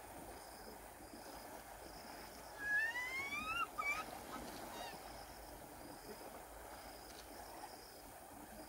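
Steady low rush of moving river water. About a third of the way in, a loud rising call with overtones lasts about a second, followed by a couple of short sharp sounds. Faint short high chirps repeat about once a second throughout.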